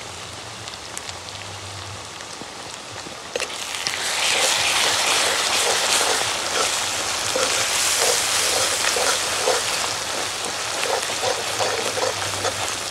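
Spices and onions frying in hot oil in a wok, sizzling softly at first and getting louder about four seconds in as the masala is stirred. A metal spoon scrapes against the pan over and over in the second half.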